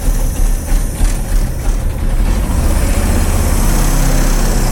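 Small boat's uncovered outboard motor running steadily with a low rumble, over a constant hiss of wind and water; its note becomes smoother and more even about halfway through.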